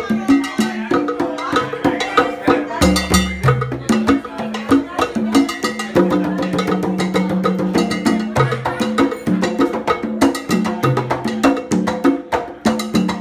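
Band playing rumba music, with a stepping bass line under dense, sharp percussion strokes.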